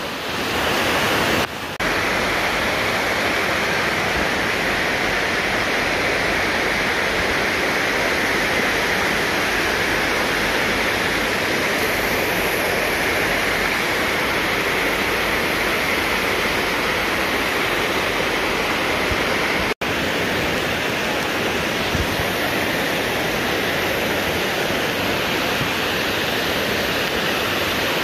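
Steady rushing and splashing of a river waterfall's water pouring over tiered limestone cascades, with a brief break a little after two-thirds of the way through.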